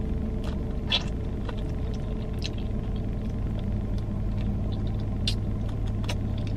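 Steady low hum of a car idling, heard from inside the cabin, with a few short wet clicks and smacks of someone eating chicken wings off the bone.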